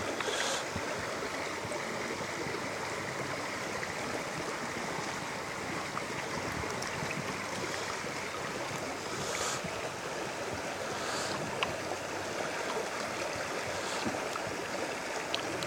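Shallow river water running steadily, with a few brief swishes as a plastic gold pan is dipped and swirled in it to wash out gravel.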